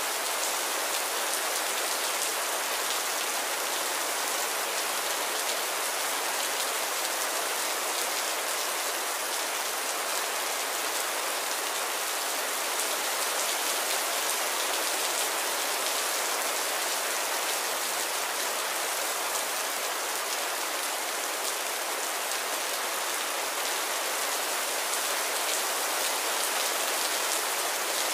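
Heavy rain pouring down in a steady, dense hiss, with the patter of individual drops hitting surfaces.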